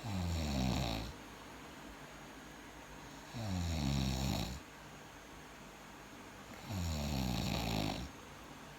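Snoring: three snores about three and a half seconds apart, each about a second long with a buzzing pitch that falls through it.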